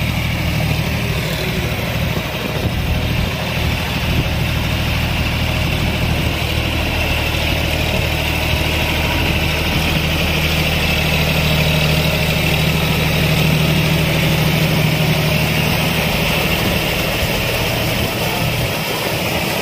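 John Deere 5050D tractor's three-cylinder diesel engine running steadily under load while pulling a rotavator through flooded paddy mud. It grows louder about halfway through as the tractor comes close.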